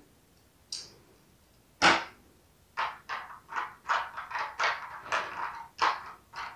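Clear plastic blister-pack tray being handled. There is a sharp click just before two seconds in, then a string of light crinkles and taps as fingers work tiny plastic miniature pastries in and out of its compartments.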